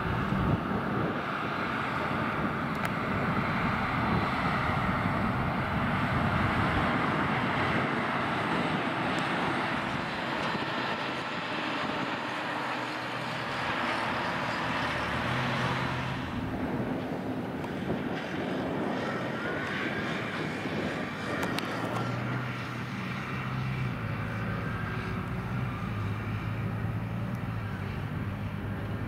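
Claas Jaguar forage harvester working in grass silage: a steady engine drone under a loud hiss of chopped grass being blown up its spout. After about twenty seconds a lower, steadier drone of a tractor with a silage trailer takes over.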